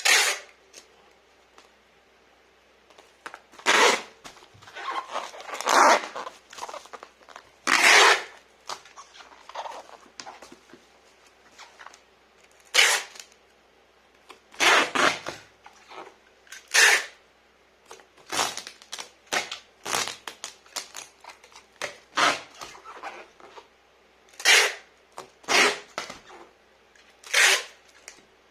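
Packing material being handled: irregular bursts of rustling and tearing, a second or so apart with short pauses.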